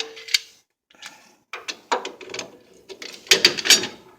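Metal hand tools working on a loosened inner tie rod: a sharp metallic clank with a brief ring at the start, then a run of irregular ratchet-like clicks and knocks.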